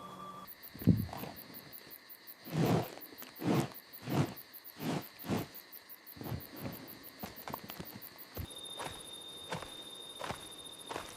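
Crickets chirping in a rapid, steady pulse, with a sharp knock about a second in, then a run of about six heavy, dull thuds and lighter knocks after them: sound effects of a large bear moving about the campsite and knocking things over.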